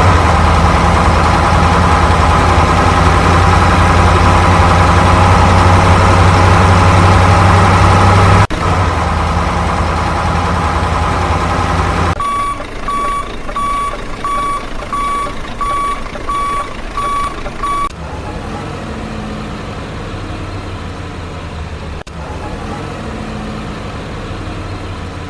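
Truck sound effect: a loud, steady diesel engine rumble for about eight seconds, then reversing beeps about twice a second for some six seconds, then a quieter engine idling.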